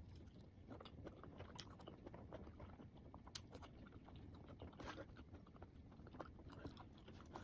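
Faint close-up chewing of mango with shrimp paste: a steady run of small wet clicks and crunches, with a couple of louder bites about three and five seconds in.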